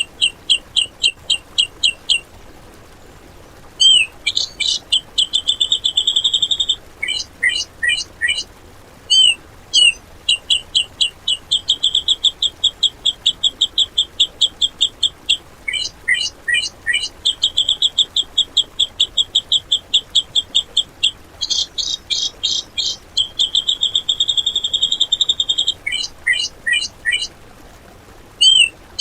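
Cucak jenggot (grey-cheeked bulbul) singing in loud phrases of rapid, evenly repeated short notes and fast trills. These are the harsh rapid-fire 'tembakan' passages, with brief pauses between phrases about two seconds in and near the end.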